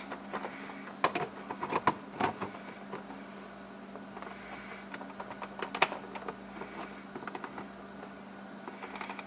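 Plastic handling clicks and small knocks as a Yamaha digital tachometer gauge and its cable connector are plugged in and pressed into a boat's dash, busiest in the first couple of seconds with another sharp click about six seconds in. A steady low hum runs underneath.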